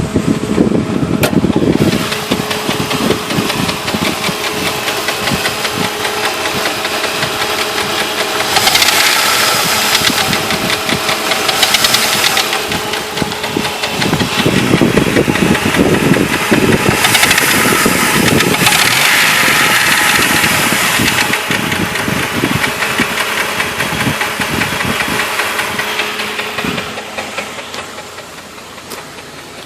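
Jeep Grand Cherokee engine running with a rapid knocking, which the owner places in the front, mid-to-upper part of the engine rather than at the flexplate. Two stretches of loud hiss come through a third of the way in and again past halfway.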